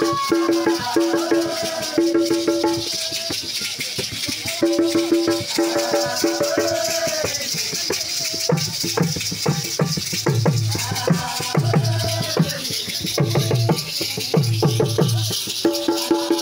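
A church congregation singing a chant in unison with hand rattles shaken to a steady beat. Higher voices carry the phrases near the start and end, and lower men's voices take the lead in the middle.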